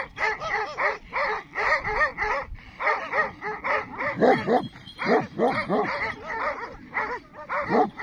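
A pack of large white dogs barking at a donkey they have surrounded: rapid, overlapping barks and yelps from several dogs at once, several a second, with a few louder, deeper barks in the second half.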